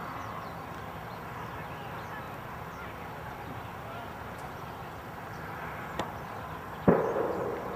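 Open outdoor ambience with faint bird calls. Just before seven seconds a sudden loud noise cuts in and trails off over most of a second.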